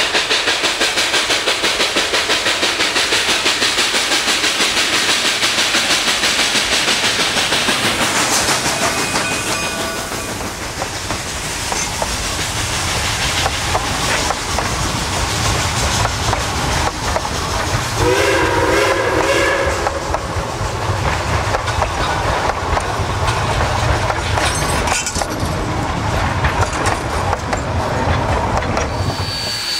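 Narrow-gauge steam train running, with a steady rhythmic beat for the first nine seconds or so that then gives way to a rougher running rumble. A short chord whistle blast comes about eighteen seconds in.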